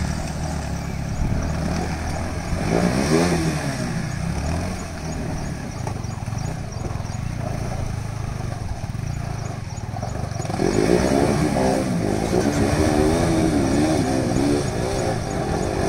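Motorcycle engine running with the throttle worked up and down, its pitch wavering as over rough ground. A short burst of revving comes about three seconds in, and a longer, louder spell of revving starts after about ten seconds.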